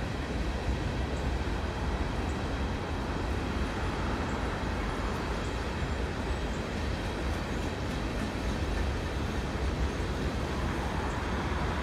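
Empty coal hopper cars of a freight train rolling past, a steady rumble of wheels on the rails.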